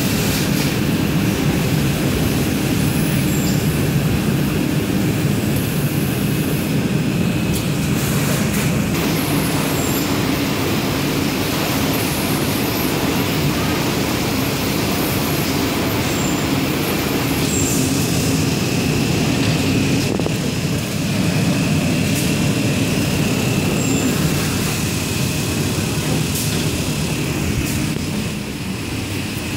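Toilet-paper converting and packaging machinery running continuously: a steady mechanical hum and rattle with a faint high whine and a few sharp clicks.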